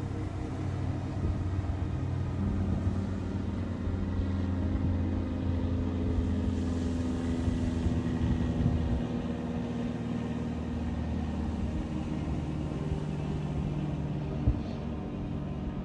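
Engine running steadily, its low hum stepping in pitch now and then, over a steady hiss. There is a single sharp knock near the end.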